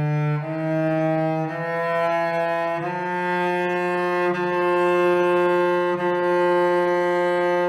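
Cello bowed slowly: a few sustained notes stepping up in pitch, then one long steady held note, played to test the wolf-tone range around F and F sharp with a wolf tone eliminator fitted on a string.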